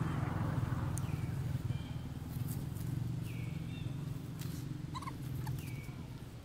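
Short high-pitched animal calls repeated about once a second, each dipping in pitch and then holding briefly, over a steady low hum, with a few brief rustles about two-thirds of the way through.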